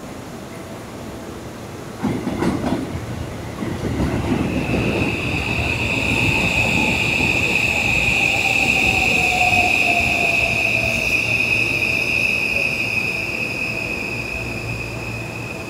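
An electric train running, with a loud, steady, high-pitched wheel squeal that sets in about four seconds in and holds on. Beneath it a lower whine slowly falls in pitch.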